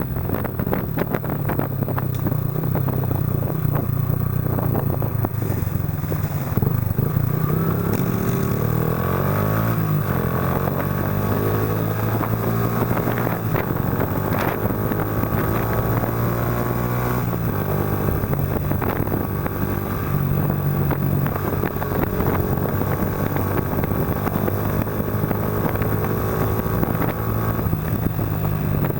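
Yamaha Factor 125's single-cylinder four-stroke engine running through an aftermarket Roncar aluminium exhaust while riding. The exhaust note is steady, its pitch rising and falling with the throttle and climbing noticeably about a third of the way in.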